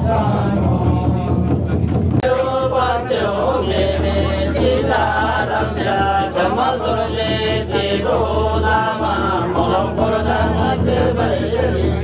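Men's voices chanting a ritual recitation together in a jhakri shaman ceremony, continuous and sing-song.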